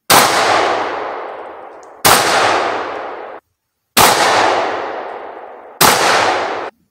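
Four shotgun shots about two seconds apart, each a sharp crack followed by a long echo dying away. Two of the echoes cut off short before the next shot.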